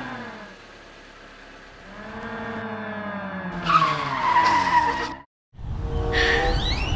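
Car sound effect: an engine pulling away with its pitch falling steadily, a tyre screech about halfway through, then an abrupt cut to silence.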